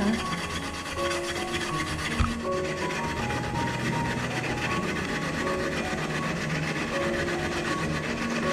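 Raw peeled potato grated by hand on a small stainless-steel grater: a steady rasping scrape of repeated strokes, with one dull knock about two seconds in. Light background music plays underneath.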